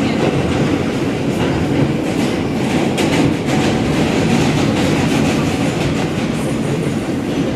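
R160 subway train heard from inside the car while running at speed: a loud, steady rumble with clicks from the wheels on the track, one sharp click about three seconds in.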